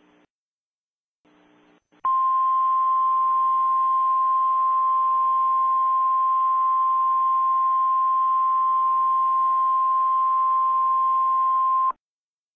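Emergency alert attention tone: a single steady tone just above 1 kHz, the 1050 Hz NOAA Weather Radio alert tone, starting about two seconds in and holding for about ten seconds before cutting off abruptly, over faint radio hiss.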